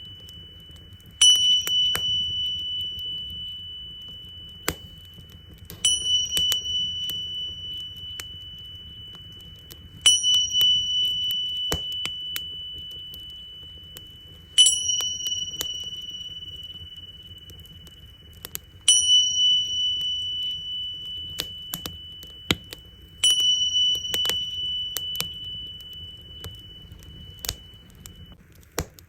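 Tingsha cymbals struck six times, about every four and a half seconds, each strike ringing on as one clear high tone that slowly fades. Underneath, a wood fire crackles with scattered sharp pops over a low, steady rush.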